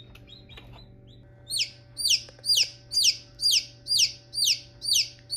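Newly hatched Copper Maran chick peeping loudly and repeatedly, about three peeps a second, each peep falling in pitch. The calls start a little over a second in, over a faint steady hum.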